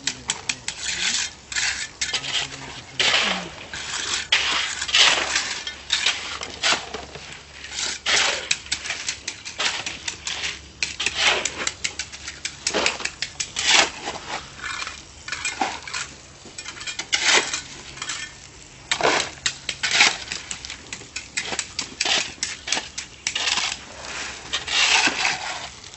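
Metal hand tools scraping and clinking against gravel and concrete during construction work, in quick, irregular strokes.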